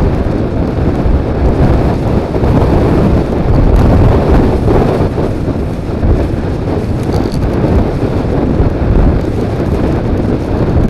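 Loud, steady rush of wind buffeting the microphone of a mirror-mounted action camera on a moving Suzuki Burgman 400 scooter, with the scooter's running and road noise mixed in.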